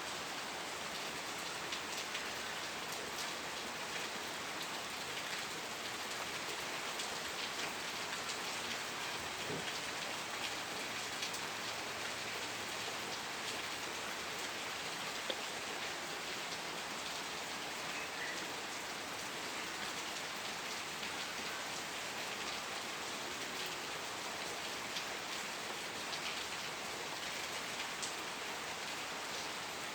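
Steady rain falling, with the patter of individual drops striking a surface.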